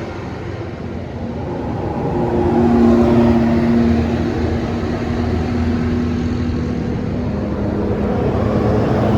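A large bus going by with a deep engine rumble and a steady drone. It swells to its loudest about three seconds in and stays loud after.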